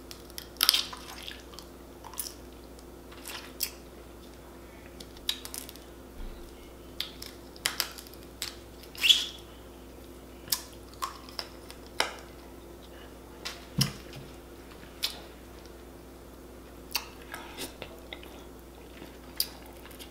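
Snow crab legs being cracked and picked apart by hand, with sharp clicks and snaps of shell scattered irregularly, mixed with wet mouth sounds of eating crab meat: chewing, smacking and sucking. A faint steady hum runs underneath.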